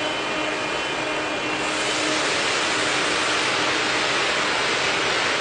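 GE90-115B high-bypass turbofan running steadily on an outdoor test stand while water is sprayed into its inlet for a water-ingestion test: a continuous dense rushing noise that grows a little louder and brighter about two seconds in.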